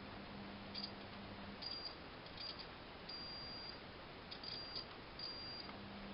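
Faint high beeps from a multimeter's continuity tester, coming in short broken bursts with one longer tone about three seconds in, as the probes make contact on the speaker wire: the wire has continuity.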